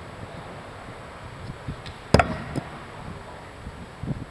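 A thrown blade strikes the target with one sharp thunk about two seconds in, followed by a fainter knock.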